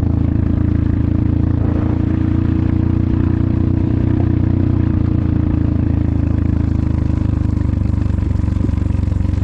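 Enduro motorcycle engine running at a steady speed, with clattering.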